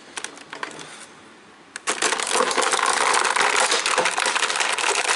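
Plastic toy packaging crinkling and crackling as an action figure and its accessories are worked loose from it, loud and continuous from about two seconds in, after a few light clicks.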